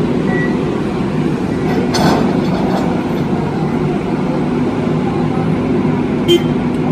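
Hydraulic piling rig's diesel engine running steadily, with a metallic clank about two seconds in and a short sharp knock near the end.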